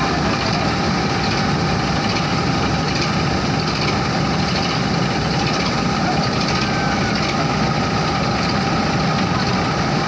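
Combine harvester's engine and unloading auger running steadily while threshed rice grain is discharged into a trailer: a constant mechanical din with a low rumble and a few steady whining tones.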